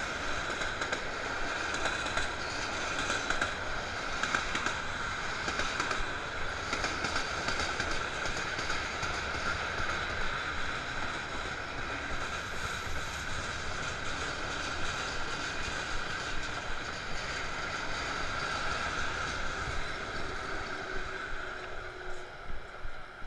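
Freight train wagons rolling past on the track close by: a steady rolling rail noise with a high tone running through it, dying away near the end as the last wagons go by.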